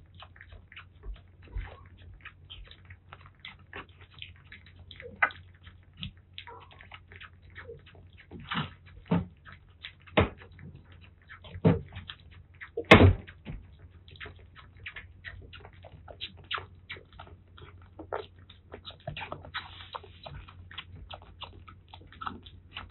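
Kittens feeding: wet smacking and sucking of a kitten nursing on a milk bottle, mixed with kittens lapping and chewing soft weaning food from ceramic bowls, a rapid irregular string of small clicks. A sharper knock sounds about halfway through.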